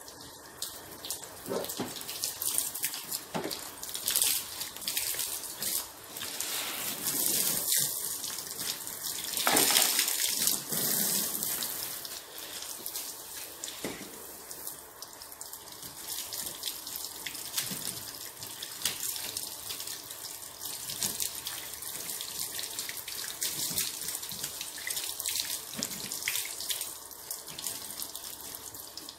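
Water spraying from a hose wand onto a car's bodywork during a wash: a steady hiss and splash that swells louder several times, loudest about ten seconds in.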